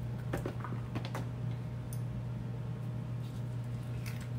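A metal spoon scooping ripe avocado flesh out of its skin, giving a few faint, scattered clicks and scrapes over a steady low hum.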